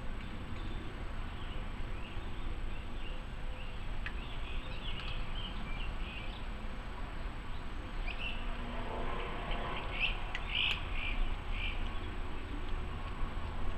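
Birds chirping in short scattered calls, clustered a few seconds in and again past the middle, over a steady low outdoor rumble.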